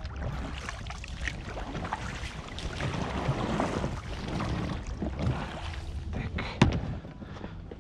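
Oars working a small rowing boat through the water, with a run of small knocks and splashes and one sharp, loud knock near the end.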